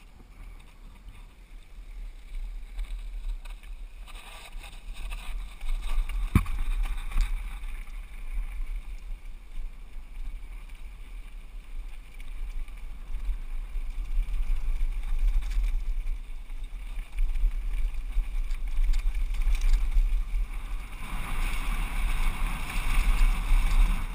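Wind buffeting a GoPro action camera's microphone as a downhill mountain bike runs down a dirt and gravel trail, with the bike's chain and frame rattling and tyre noise over the rough ground. Louder from about four seconds in as speed builds, with a sharp knock about six seconds in and more tyre hiss near the end.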